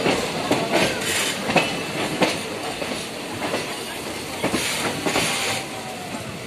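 Passenger train running along the track, its wheels clattering over the rail joints in a regular clickety-clack under a steady rumble.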